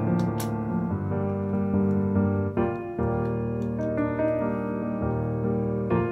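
Gentle electric-piano background music, its chords changing about every second. A few faint clicks of plastic LEGO bricks being pressed together sound under it.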